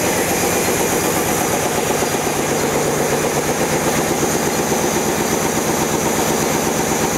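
Silk reeling machines running: a steady, loud, rapid mechanical clatter of the reels and their drive.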